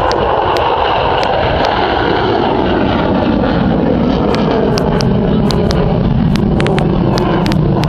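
F-16 Fighting Falcon jet engine noise as the fighter flies past overhead: a loud, continuous rushing that drops lower in pitch about halfway through as it passes.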